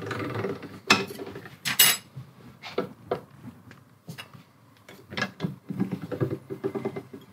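Sheet metal and steel parts clanking and clinking on a manual slip-roll machine and steel workbench as the rolls are set and the sheet is worked, with a loud ringing clink about two seconds in.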